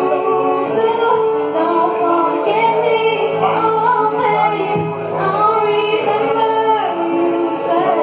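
A woman singing live into a microphone over instrumental accompaniment, with long held and sliding notes.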